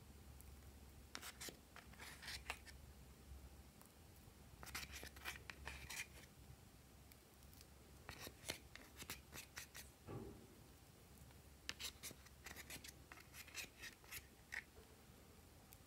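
Pink plastic spatula scraping pressed gold eyeshadow out of a palette's pans: quiet runs of scratchy clicks with pauses between them. One dull knock about ten seconds in.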